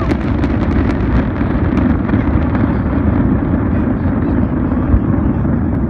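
The tail of a large fireworks display: scattered crackles die away over a steady low rumble.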